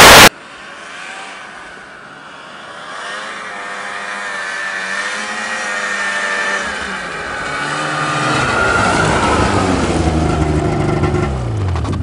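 Snowmobile engine approaching and growing louder over several seconds, then its pitch falls as it slows and pulls up, the sound dropping away near the end. A brief, very loud burst sounds right at the start.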